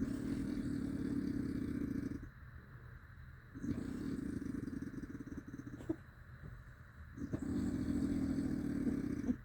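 Heavy snoring: three long, loud snores at a steady rhythm with quieter breaths between, each snore a fast fluttering buzz that sounds like a dirt bike.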